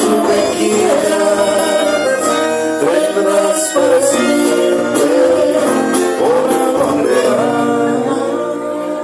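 Live band music: a man singing into a microphone over strummed acoustic guitars.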